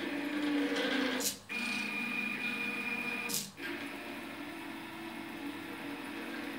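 Stepper motors of a homemade pen plotter driving the pen carriage, a steady pitched whine that shifts in pitch as the moves change. Twice, about a second in and again a couple of seconds later, it breaks off with a click and a brief pause, and a higher tone is heard between the two breaks.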